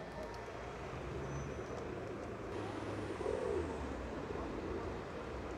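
Steady city traffic hum, with a pigeon cooing softly about three seconds in.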